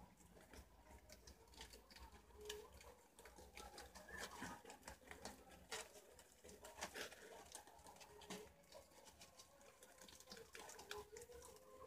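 Faint, scattered rustles and clicks of wild cavies (preás) moving and nibbling among cut leaves and fruit scraps, with a faint low cooing call now and then in the background.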